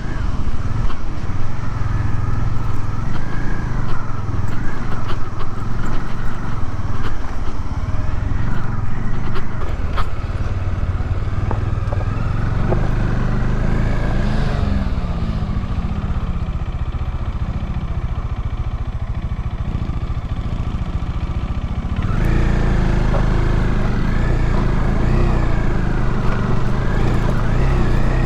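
Motorcycle engine running while riding, its revs rising and falling. The sound shifts abruptly about 22 seconds in and then runs steadier.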